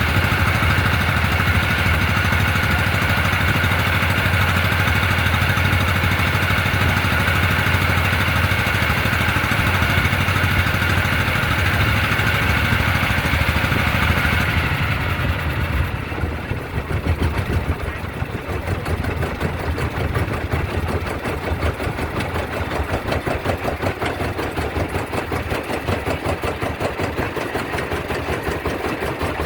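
An engine running steadily with a low hum and a higher whine. About halfway through, the sound changes to a rougher, rapid pulsing.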